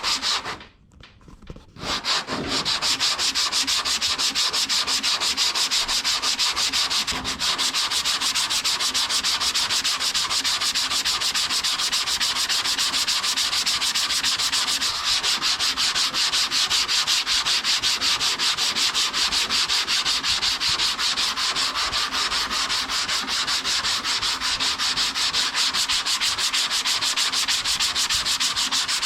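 Block sanding of guide-coated body filler on a car door: sandpaper on a sanding block rubbing back and forth in rapid, even strokes. The strokes start about two seconds in, after a brief pause. The sanding takes the guide coat off the high spots, leaving the low areas showing.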